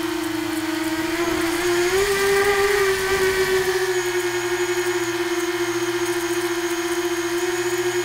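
Brushless motors and three-blade 6-inch propellers of a small tricopter in flight, a steady whine heard from its onboard camera; the pitch rises a little about two seconds in, then settles back.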